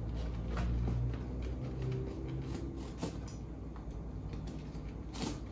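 Kitchen knife cutting through the thick, knobbly rind of a whole chempedak fruit: faint, scattered crunching clicks, with a sharper click about five seconds in, over a low steady hum.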